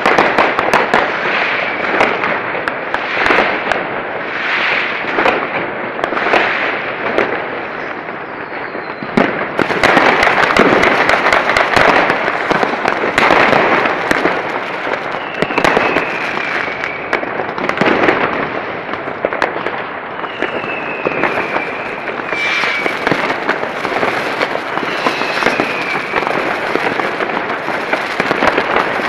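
Many fireworks going off at once: rockets and firecrackers make a continuous crackle of sharp bangs, growing denser about a third of the way in. A few short falling whistles sound in the second half.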